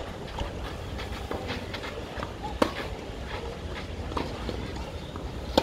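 Tennis rally: sharp pops of racket strings hitting the ball, a loud one about two and a half seconds in and another near the end, with a fainter hit from the far end of the court between them. Steady low wind rumble on the microphone throughout.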